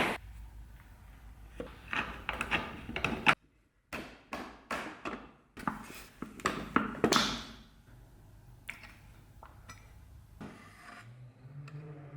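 A series of sharp knocks and clicks of hard wood and metal parts being handled and fitted together, with a brief gap about three and a half seconds in. A low steady tone begins near the end.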